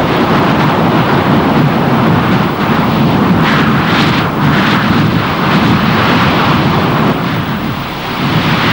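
Loud storm wind blowing hard and steadily at typhoon strength, with surges that rise and fall, strongest about three to five seconds in.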